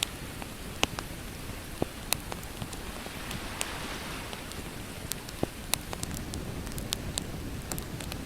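Campfire crackling, with sharp pops at irregular moments over a steady wash of ocean waves.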